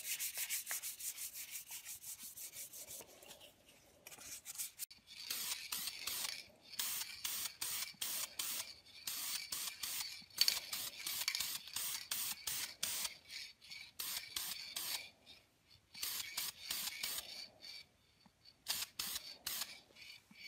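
Fine sandpaper rubbed back and forth by hand over a lacquered wooden mallet head, a light sanding between lacquer coats. Quick, even strokes at first, then after a short pause, bursts of rasping strokes with brief gaps between them.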